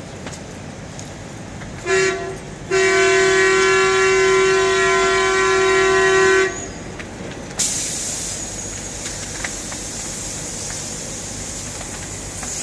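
Air horn sounding: a short blast about two seconds in, then one long steady blast of nearly four seconds. About seven and a half seconds in, a sudden loud hiss starts and slowly dies away.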